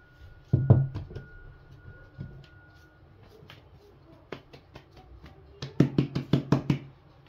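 Hands working soft yeast bread dough on a floured table: a few dull thumps as it is pressed and knocked down, then near the end a quick run of about eight slaps as the dough is patted between the palms.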